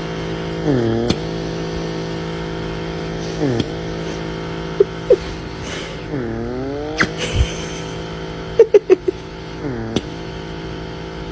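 A motor running with a steady pitched drone, its pitch dipping and climbing back about four times, with a few short sharp clicks in between.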